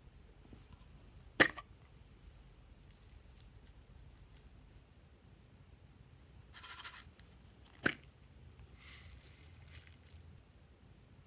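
Two sharp plastic clicks from small slime tubs being handled, one about a second and a half in and a louder-than-all-else one near eight seconds. Between and after them come brief hissy rustles as sequins and foil confetti are tipped onto the slime.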